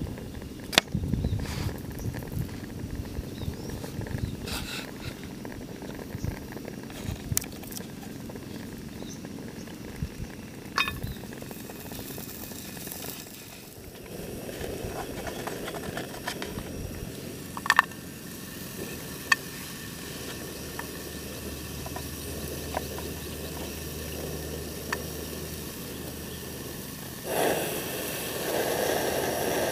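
Camp-cooking handling sounds: scattered clicks and knocks of cookware and utensils over a steady low rumble, growing louder and noisier near the end.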